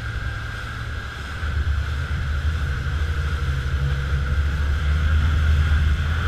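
Rigid inflatable speedboat running flat out, its engine a deep steady drone that grows louder about a second in, over the rush of water and spray past the hull and wind on the microphone.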